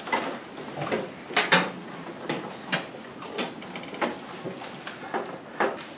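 Irregular knocks, bumps and shuffling of children moving about a classroom among the desks, a few clicks a second, the loudest about one and a half seconds in.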